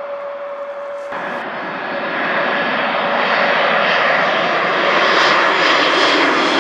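Jet airliner engines roaring, swelling louder as the aircraft passes close. The roar starts suddenly about a second in, replacing a steady hum, and cuts off abruptly at the end.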